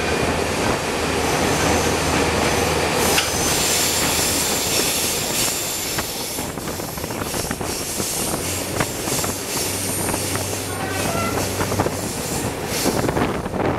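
X 2800 diesel railcar running, heard from aboard: a steady low engine hum under the rumble and clatter of wheels on rail, with a high-pitched wheel squeal on the curve and scattered clicks. The sound opens up about three seconds in as the railcar leaves a tunnel.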